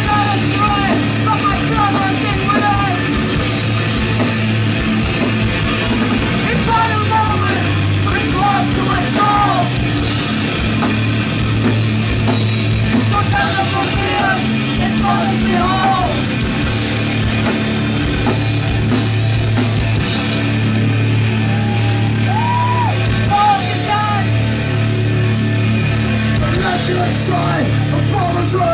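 Live heavy metal band playing loud, with electric guitars, bass, drums and cymbals, and a singer's voice coming in and out over the band several times.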